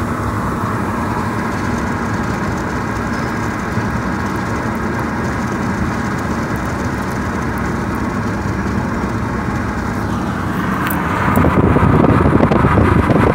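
Steady road and engine noise of a moving car heard from inside the cabin. It gets louder and rougher about eleven seconds in.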